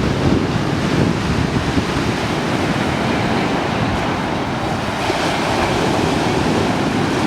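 Stormy sea surf breaking and washing on the beach in a loud, continuous rush, with wind buffeting the microphone.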